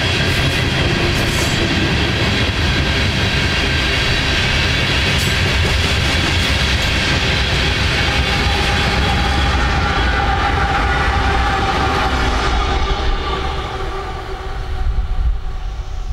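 A freight train of covered hopper cars rolling past at speed, a loud steady rumble with wheel clatter on the rails. About halfway through, the train's rear diesel locomotives pass, adding a steady tone, and the sound then eases off near the end.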